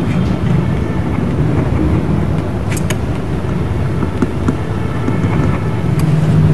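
Steady low background rumble, with a few light ticks of a pen writing on paper.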